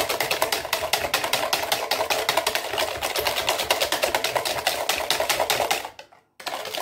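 A wire balloon whisk beating eggs and sugar in a plastic measuring jug: a fast, even clatter of the wires against the jug. It breaks off briefly about six seconds in, then carries on.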